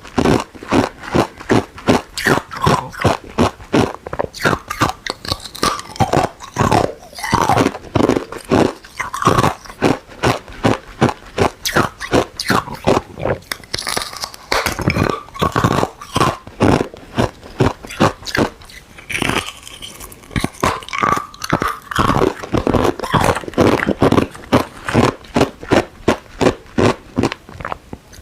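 Ice cubes being bitten and chewed close to the microphone: a rapid run of loud, sharp crunches, several a second.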